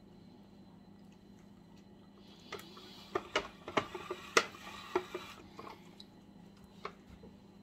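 Plastic hand-cranked vegetable spiralizer being worked with a carrot in it. About two seconds in comes a run of sharp plastic clicks over a crisp scraping, lasting about three seconds, then a few single clicks.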